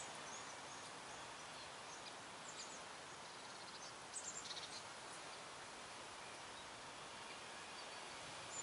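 Faint outdoor ambience: a steady hiss with a few brief, high bird chirps scattered through it.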